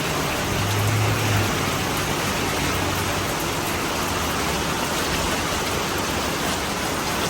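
Steady heavy rain falling during Hurricane Hilary, an even hiss of rain with no letup; a brief low hum sounds about a second in.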